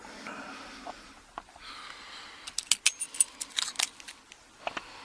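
Small metal parts of a padlock and hand tools being handled. A soft scraping at first, then a quick run of sharp metallic clicks and clinks in the second half, with two more near the end.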